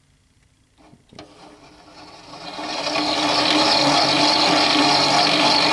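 Electric drive motors of a scratch-built RC bulldozer starting up and turning its gears and roller chains on a test run. A couple of faint clicks come first; from about a second in, a mechanical whir builds, then holds loud and steady.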